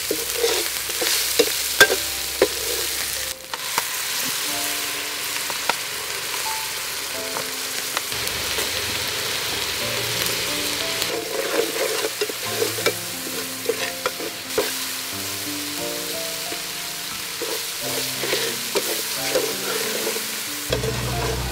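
Ground herb paste sizzling as it fries in oil in an aluminium pot, stirred with a metal ladle that clicks and scrapes against the pot. Soft background music with a stepping melody comes in a few seconds in.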